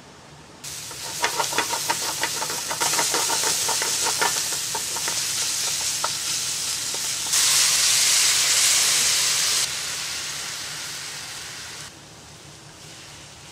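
Diced onions sizzling in hot oil in an aluminium frying pan. For the first few seconds a wooden spatula scrapes and taps against the pan in quick strokes. The sizzle swells and eases in steps, is loudest a little past the middle, then drops away sharply near the end.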